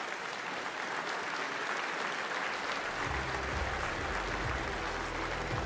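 Arena crowd applauding at the end of a boxing round. A low, thudding bass beat from the hall's music comes in about three seconds in.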